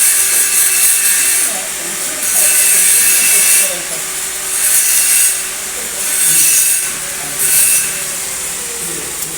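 Repeated scraping or rasping strokes of a hand tool working on metal, about one stroke every second and a half.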